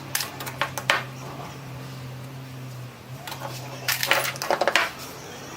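Small metal parts or tools clinking and clattering against each other in two short bursts, the second a little over three seconds in, over a steady low hum.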